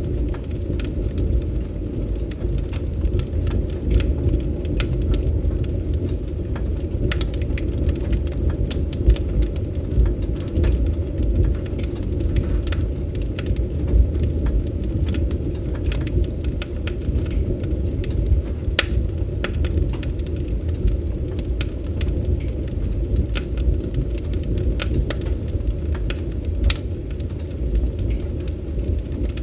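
Wood fire crackling: many small, irregular pops and snaps over a steady low rumble.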